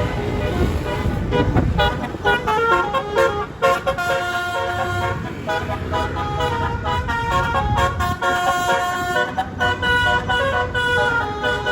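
Bus "telolet" musical horn playing a tune of short stepped notes over the low rumble of the bus engine. The horn starts a little over a second in.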